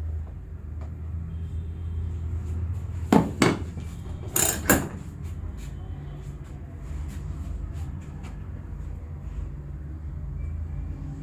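Head and neck massage by hand: four sharp snaps in two quick pairs, about a second apart, over a steady low hum.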